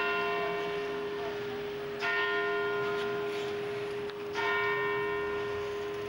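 Large church bell tolling: three strokes about two seconds apart, each ringing on in a long, steady hum.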